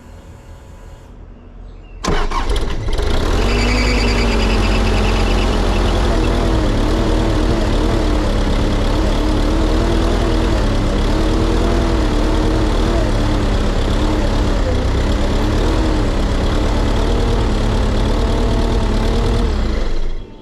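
A skid steer's diesel engine cranking on its starter for about eighteen seconds without catching, then stopping abruptly: it is starved of fuel after a fuel filter change, with the new filter not yet primed.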